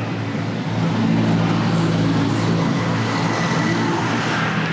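Low, steady hum of a motor vehicle's engine running on the street close by, a little louder from about a second in.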